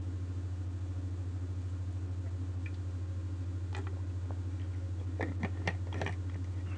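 A person drinking water from a bottle: swallowing and mouth sounds with small clicks of the bottle being handled, most of them between about five and six seconds in, over a steady low electrical hum.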